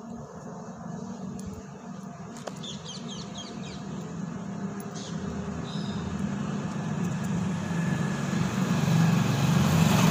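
A motor vehicle's engine hum growing steadily louder as it approaches. A bird chirps a few quick times about two to three seconds in.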